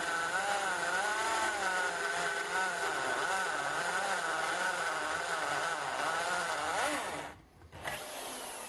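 Electric drill turning a large step drill bit in soft aluminium sheet: a loud, whining gearbox with its pitch wavering as the load changes, winding down and stopping about seven seconds in. The owner says the drill's gearbox is dying.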